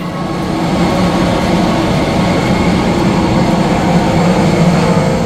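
Loud, steady noise of a parked airliner and the airport apron, the jet and machinery running close by, building up over the first second.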